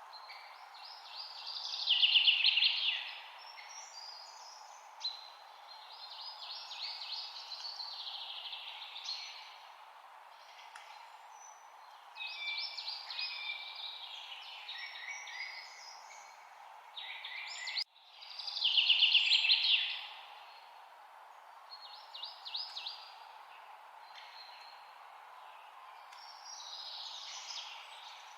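A songbird singing: short phrases of rapid trills and chirps, repeated every few seconds, with the loudest bursts about two seconds in and again past the middle. A steady background hiss lies under the song.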